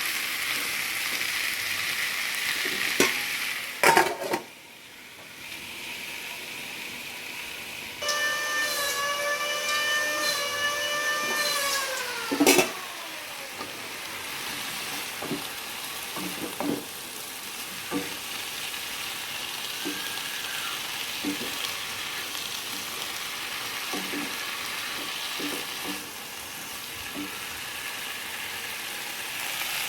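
Tofu and cabbage stir-fry sizzling in a pan, with a spatula knocking and scraping against it now and then. The sizzle dips for a few seconds about four seconds in. From about eight seconds a steady whistle-like tone holds for roughly four seconds, then slides down in pitch and stops at a loud knock.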